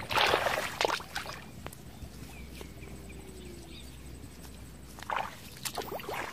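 Short wet splashes and squelches in shallow paddy water and soft mud, a cluster in the first second and more about five seconds in, with a quieter stretch between.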